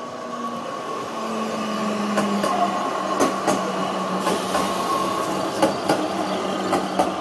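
City tram passing close alongside on its street rails, a steady hum and rumble that swells as it goes by. Several sharp clacks come through the middle and end of the pass.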